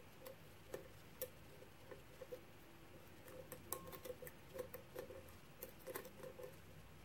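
Steel hook pick working the pins inside a brass Russwin pin-tumbler lock cylinder under a tension wrench: faint, irregular clicks and light scrapes as the pins are lifted one by one, busiest in the second half.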